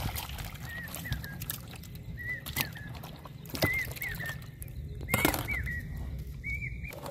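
A bird calls repeatedly in short, arched chirping notes, often in pairs, about one or two a second. Over it come a few sharp knocks and rustles from handling the plastic basin of fish; the loudest is about five seconds in.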